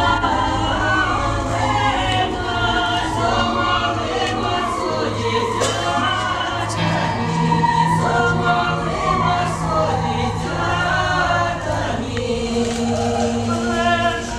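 A choir singing over a steady low hum; about halfway through, a second low tone comes in and is held for about five seconds.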